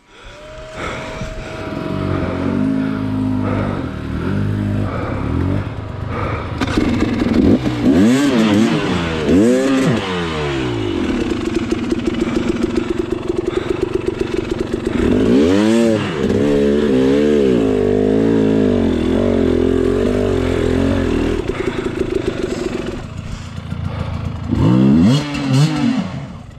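300cc two-stroke enduro dirt bike engine running under load, revved up and back down sharply several times, with a steadier held note between the revs.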